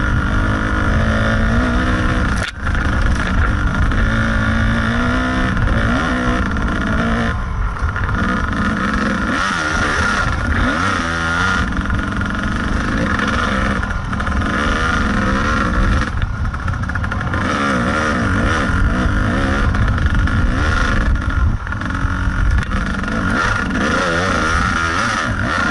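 Kawasaki KDX 220 two-stroke single-cylinder dirt bike engine being ridden hard, revving up and down with the throttle. The pitch keeps rising and falling, with a brief drop about two and a half seconds in.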